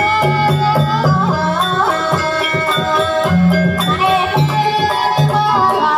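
Banyumasan gamelan music for a kuda kepang (ebeg) dance: a melodic line that glides between notes over frequent drum strokes and a pulsing low part.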